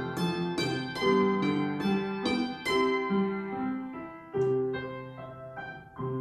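Solo piano playing a quick run of bright, ringing notes that thins out after about three seconds into a few separate, slower notes.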